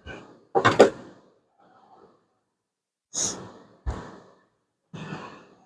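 Metal engine valve-train parts being handled: four short clanks and knocks, the loudest under a second in, one with a dull low thud about four seconds in.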